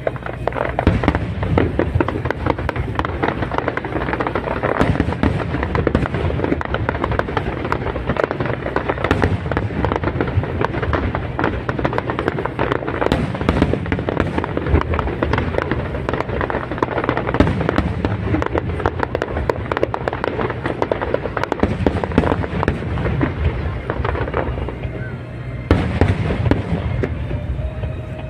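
Large fireworks display: a rapid, continuous barrage of bursts and crackling shells. It eases briefly near the end, then comes back with loud bursts.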